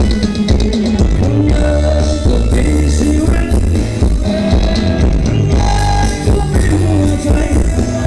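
Loud Thai ramwong dance band music through a PA, with a steady pulsing bass beat under a melody line.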